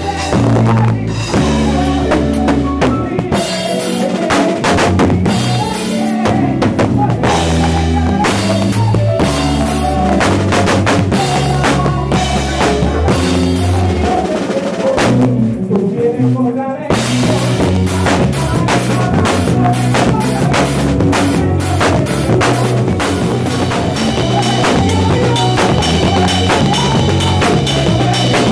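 A live band playing: drum kit with bass drum and snare under a bass line and fuller chords. The low end drops away briefly a little past halfway, then the full band comes back in.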